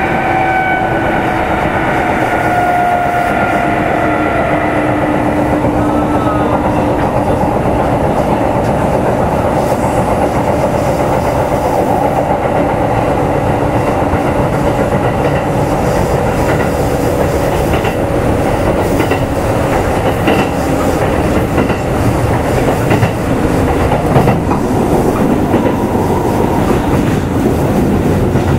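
Kintetsu 2800 series electric train running, heard aboard motor car Mo 2852. A motor whine falls in pitch and fades over the first few seconds, then there is a steady rumble of wheels on rail with clickety-clack over the rail joints.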